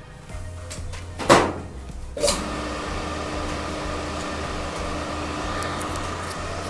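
A 220 V single-phase capacitor motor being switched on and running up to speed: two sharp clacks in the first couple of seconds, then a steady electric hum with a steady whine. It is running free with no load, a healthy motor drawing only about 2.6 A of its 12.5 A rating.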